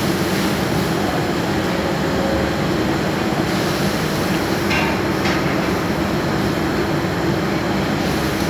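Steady mechanical roar with a low hum from commercial kitchen equipment, with a couple of faint clinks about five seconds in.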